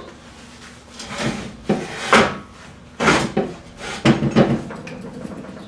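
Several separate knocks and clanks of metal being handled, with quiet between them: the steel workpiece and tools being moved into place for another weld pass.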